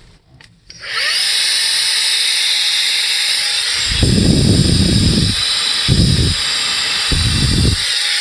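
Xiaomi Mijia SSXCQ01XY handheld vacuum cleaner's 120 W brushless motor switching on with a short rising whine, then running at one speed with a steady high-pitched whine and rush of air. Three short low rumbles come around the middle.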